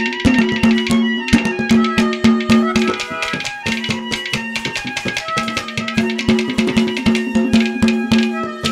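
Instrumental interlude of Haryanvi ragni folk music: fast hand-drum strokes over a melody instrument holding a low note, with shorter notes moving above it.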